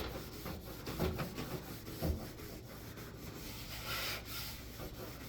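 Wet microfiber cloth rubbing a gritty paste of Bar Keepers Friend cleanser on stainless steel in repeated strokes along the grain.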